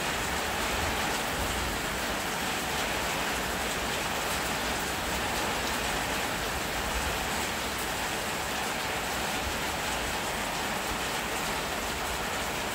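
Loud, steady rain falling, an even hiss with fine patter that does not let up.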